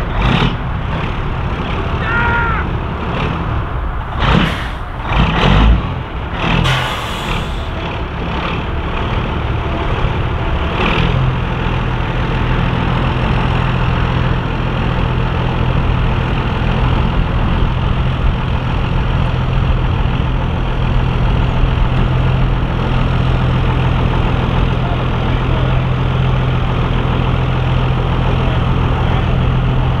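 Truck engine running, with a few loud sudden sounds in the first several seconds, then settling into a steady low hum from about eleven seconds in.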